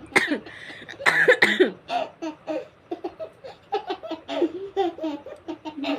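Laughter: a loud outburst about a second in, then a run of short, rhythmic laughing pulses, a few a second.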